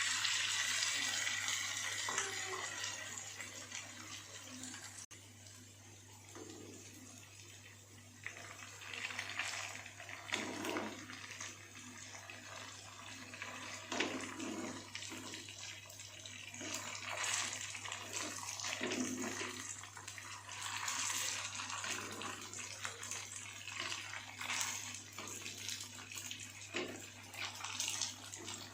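Hot cooking oil sizzling and crackling with irregular small pops as food fries in a pan; loudest in the first couple of seconds, then settling to a lower steady sizzle.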